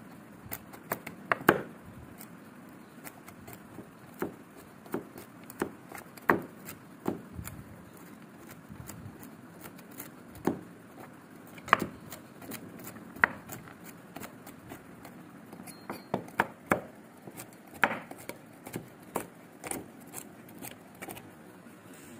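Kitchen knife chopping pan-roasted almonds on a wooden cutting board: irregular, sharp knocks as the blade cuts through the nuts and hits the board.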